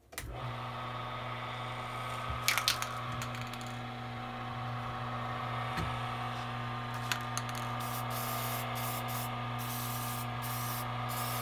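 Mini wood lathe switched on and running with a steady motor hum, spinning a pen blank. In the second half, an aerosol can of spray lacquer hisses in several short bursts as it is sprayed onto the turning pen.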